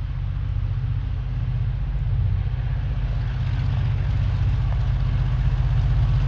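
TasRail TR-class diesel-electric locomotives running under power, a steady low engine drone that grows gradually louder as the train approaches. A hiss of rolling noise rises with it in the second half.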